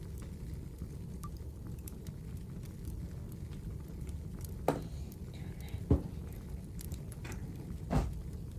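Wood fire crackling over a steady low rumble, with three louder pops in the second half.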